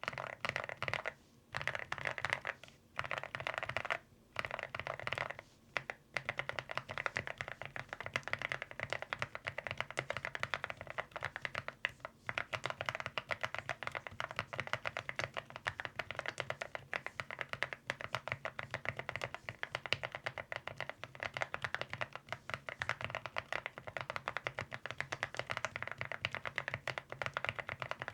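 Mechanical keyboard typing on an AULA F99 with Akko Bittersweet tactile switches and MOA-profile keycaps. It starts with a few short bursts of keystrokes separated by brief pauses, then settles into steady fast typing. The key sound is fairly low-pitched.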